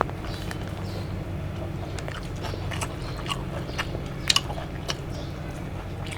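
People chewing and biting food, with scattered small wet clicks and smacks from the mouths, over a steady low hum.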